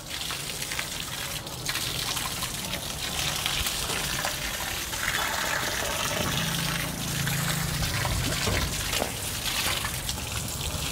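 Water spraying from a garden hose in a steady hissing stream, splashing as it lands.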